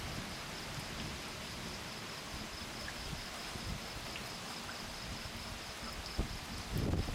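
Steady rain falling during a thunderstorm, with a faint, high, evenly pulsing insect trill behind it. A couple of low thumps come near the end.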